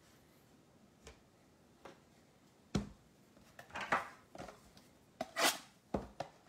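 Cardboard trading-card blaster box being picked up and handled on a wooden table: a few faint clicks, a single knock about three seconds in, then a run of scraping and rustling of cardboard, loudest about five seconds in.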